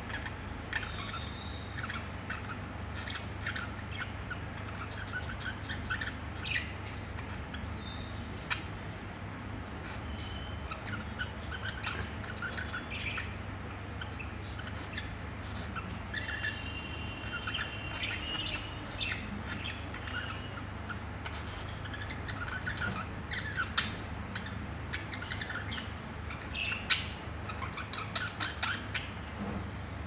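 A pair of budgerigars chattering and warbling: quick chirps and squawks running on and off throughout, over a steady low hum. Two sharp, louder clicks come near the end.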